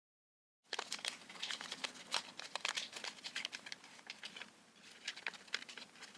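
Folded origami paper crinkling and crackling as fingers handle and open the paper rooster. It starts just under a second in and goes on as a dense run of sharp crackles.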